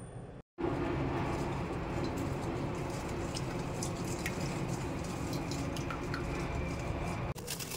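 Liquid bibingka batter being stirred with a spatula in a stainless steel mixing bowl: wet squishing and sloshing with light ticks and scrapes against the metal. A brief dropout about half a second in, where the video cuts.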